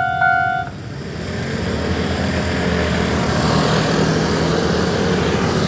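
Level-crossing warning bell ringing at about two strikes a second, stopping under a second in. After it, a steady vehicle noise builds and holds.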